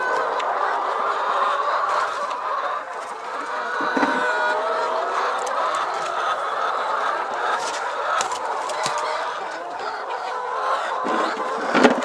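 A flock of laying hens clucking continuously, many birds at once, with a sharp knock shortly before the end.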